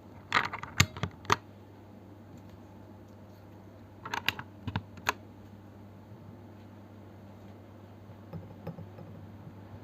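Mechanical keyboard typing on unlubed Holy Panda tactile switches in a Noir OLV 75 keyboard with OSA keycaps. There are short runs of clacking keystrokes: one run in the first second and a half, another around four to five seconds in, and a few fainter taps near the end.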